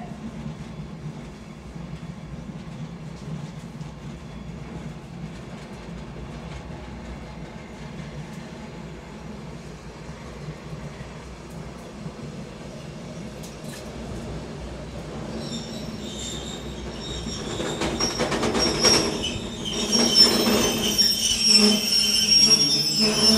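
Steel wheels of a freight train rolling on the rails, heard from the open rear platform of an Erie Lackawanna caboose: a steady low rumble. In the last third it grows louder, with high-pitched wheel squeals and clanking.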